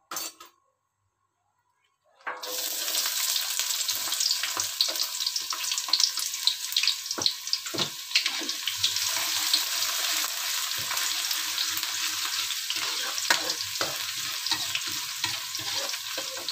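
Chopped shallots and garlic frying in hot oil in a wok: a loud, steady sizzle full of crackles that starts suddenly about two seconds in. A spatula scrapes and knocks against the wok now and then as they are stirred.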